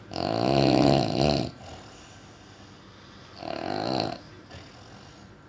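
A person snoring loudly: one long snore lasting about a second and a half, then a shorter, weaker one about two seconds later.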